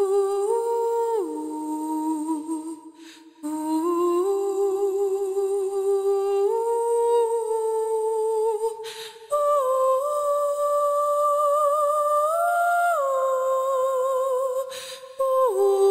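Wordless humming of a slow, mellow, dark melody: long held notes with vibrato that slide from one pitch to the next, with short pauses about every six seconds.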